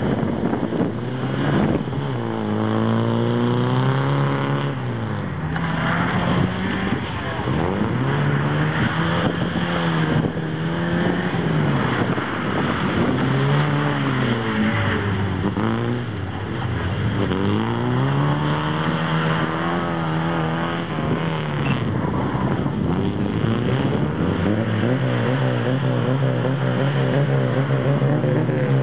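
Moskvich car's engine revving hard through a cone course, its pitch climbing and dropping again every few seconds as the throttle is opened and lifted between turns, with a longer, steadier pull near the end.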